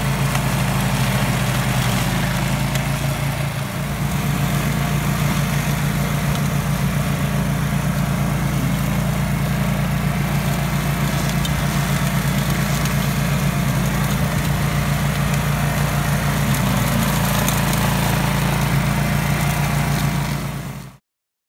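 Walk-behind gyrobroyeur (rotary brush mulcher) engine running steadily under load while it cuts through tall dry grass and brush. The sound cuts off suddenly near the end.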